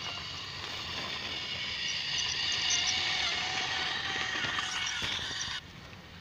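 Battery-powered toy train's small electric motor and plastic gears whirring steadily, then stopping abruptly about five and a half seconds in.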